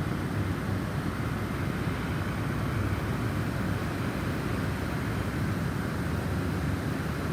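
Snowstorm wind blowing steadily, a low rushing noise without a break.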